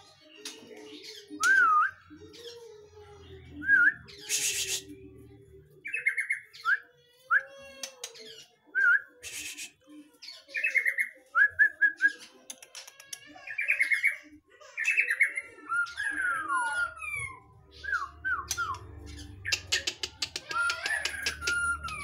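White-rumped shama (murai batu) singing a varied song of short whistled phrases, rising and falling pitch glides and quick trills, broken by a few harsh rasping notes.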